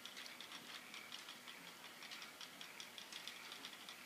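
The plastic mechanism of a K'Nex grandfather clock ticking, a faint, steady run of light clicks several times a second.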